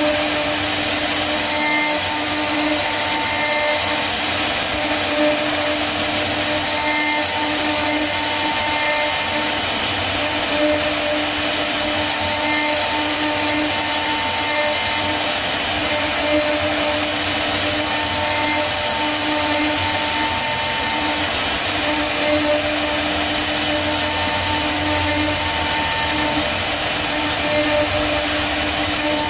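CNC router's high-speed spindle carving wood: a steady, high-pitched whine mixed with cutting noise, and a lower hum that comes and goes every few seconds.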